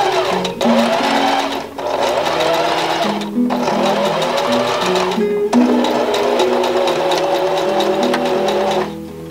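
Electric sewing machine stitching through layered fabric in fast continuous runs, stopping briefly three times and halting near the end.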